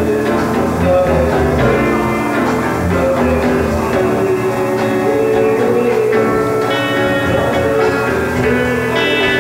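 A 1960s amateur rock band's rehearsal tape playing an instrumental passage: electric guitars, with organ and bass, and a wavering lead line. The recording is loud and steady, with little treble.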